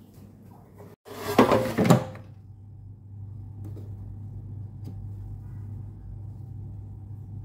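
Basket drawer of a Philips air fryer pushed shut, a loud sliding rattle lasting about a second, with a steady low hum behind it.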